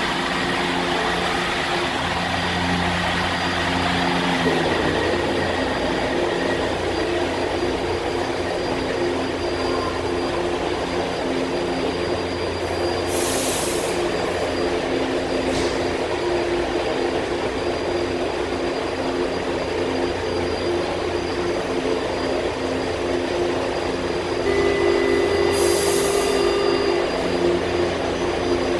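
Stationary metro train at a station platform: the steady hum of its onboard equipment, with short hisses of air. Near the end a steady warning tone sounds for a couple of seconds as the doors close.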